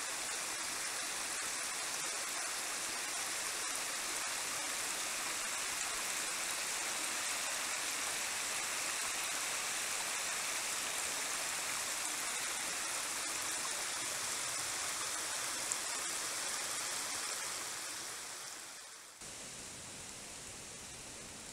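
Steady rushing of a shallow woodland creek flowing. Near the end it fades and gives way to a quieter, faint outdoor hush.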